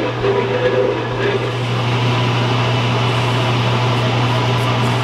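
Metal shaper taking a light finishing cut on a block of A2 tool steel: a steady motor hum with a rhythmic beat from the ram's strokes that fades out after about a second and a half, leaving the machine running steadily.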